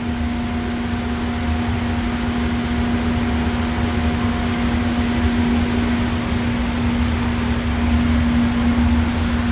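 Steady drone of workshop machinery running, with one constant low hum and a rumble beneath it, unchanging throughout.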